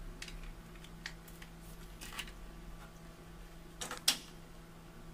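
Hands handling a smartphone and its case: scattered light clicks and taps, with a sharp snap about four seconds in.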